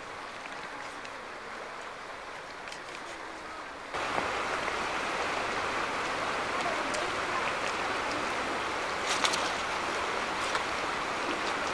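Steady rush of a shallow, fast river running over gravel riffles, which gets suddenly louder about four seconds in. A few faint short ticks sound over it.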